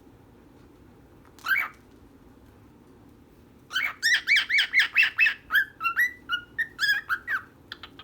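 Cockatiel calling: one short call, then a quick run of about fifteen chirping notes, with a couple of fainter chirps near the end.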